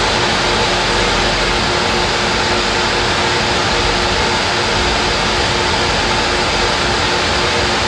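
Miniature Stirling engine running at speed, its propeller spinning fast: a steady, even whirring noise.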